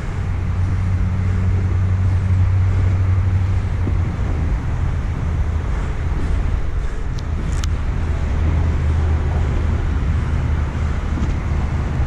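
Steady low drone of road traffic with an even hiss over it.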